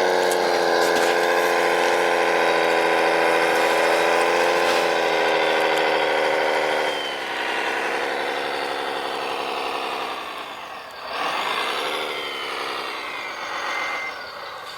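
Motor whine of a radio-controlled construction machine, steady and high-pitched at first. About seven seconds in the pitch drops and wavers. Near the end it dips and climbs again under changing load.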